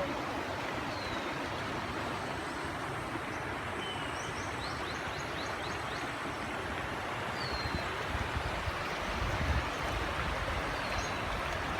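Steady outdoor rushing noise with a few faint, short, high bird chirps scattered through it, and a low rumble of wind on the microphone about nine seconds in.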